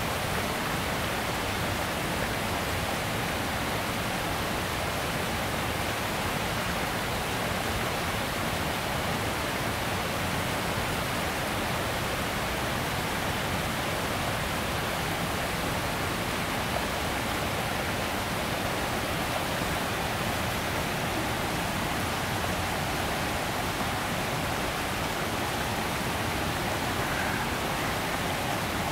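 Steady, unbroken rush of running water, an even hiss that holds the same level throughout.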